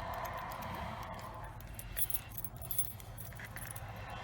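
Lock picks and a tension wrench working inside a cheap 40 mm padlock: scattered small metallic clicks and scrapes over a low steady hum, with two sharper clicks about two seconds in and a little later.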